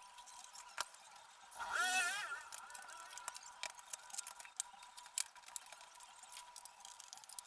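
Small clicks, taps and scrapes of a laptop's plastic casing being unscrewed and pried open by hand. About two seconds in, a brief wavering pitched sound rises over it, and a faint steady high hum runs underneath.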